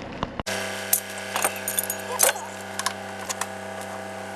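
Light metallic clinking and ticking of hand tools on metal, as the excavator's cab bolts are worked on, over a steady low hum. It starts abruptly about half a second in.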